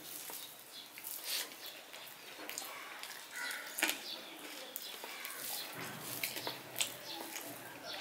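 Eating by hand: fingers squishing and mixing rice with curry on a steel plate, and chewing with wet lip smacks, heard as a string of short, irregular clicks.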